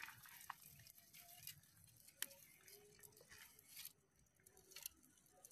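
Faint, scattered cracks and rustles of dry twigs being handled and laid onto a small wood fire.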